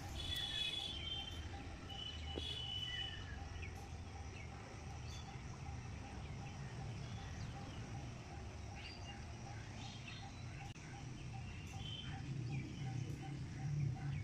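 Birds chirping in short, high calls, a cluster near the start and more later, over a steady low outdoor rumble.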